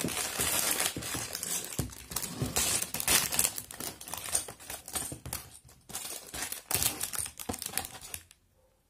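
Cardboard Lego box being opened and handled, with irregular rustling, crinkling and scraping as the instruction booklet and plastic bags of pieces are pulled out. The handling stops shortly before the end.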